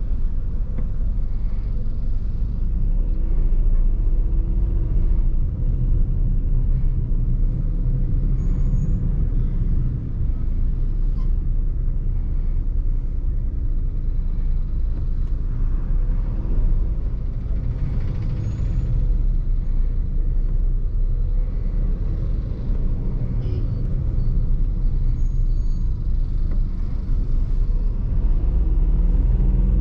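Toyota Vitz's 1.0-litre three-cylinder engine driving the car along with road noise, its pitch rising and falling several times as the car speeds up and slows.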